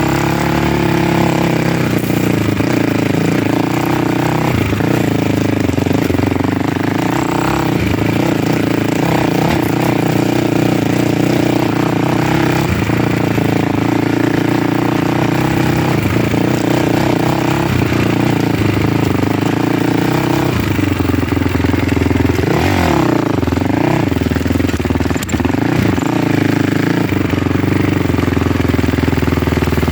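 Engine of a vehicle running under way, its pitch rising and falling as the speed changes, with a dip and rise about three-quarters of the way through.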